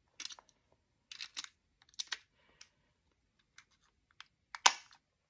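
Irregular plastic clicks and taps of a battery being worked into the back of a quartz clock movement, with one louder snap near the end as it seats.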